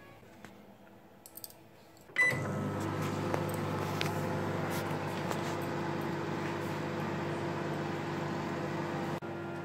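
LG Grill microwave oven starting up: a few faint clicks, a short beep about two seconds in, then a steady hum as it runs.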